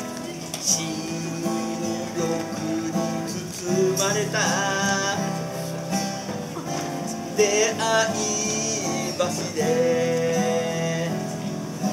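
A man singing a slow song to his own acoustic guitar, with steadily plucked and strummed chords beneath and a wavering vibrato on his held notes.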